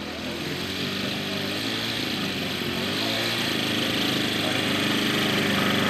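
Engine of a large radio-controlled scale model warbird running at low throttle as it taxis on grass, growing steadily louder as it comes closer.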